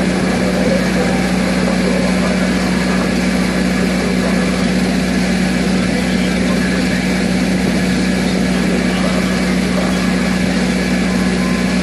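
A steady engine drone: a constant low hum under a wide hiss, with no change in pitch or level.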